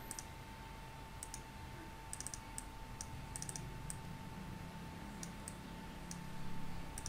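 Computer mouse clicking: about a dozen light, sharp clicks scattered irregularly, some in quick clusters, as a chart pattern is drawn on screen. A faint steady whine runs underneath.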